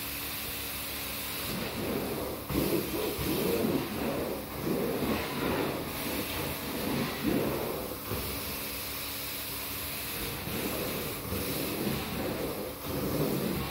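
Carpet extraction wand drawn across carpet in repeated strokes, sucking up water, over the extractor's steady vacuum hiss and hum. The strokes are loudest from about two to eight seconds in and again near the end.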